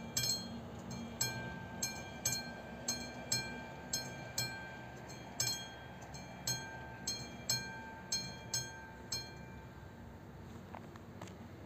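Level-crossing warning bell of an AŽD 71 crossing signal ringing, about two strikes a second, while the red lights flash to warn of a train. It stops about 9 seconds in as the lights go out, showing the crossing has cleared. A low steady rumble runs underneath.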